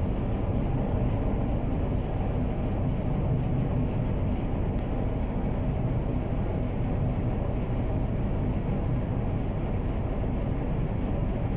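Steady low rumble of an interisland ship under way, its engines droning evenly with water noise mixed in.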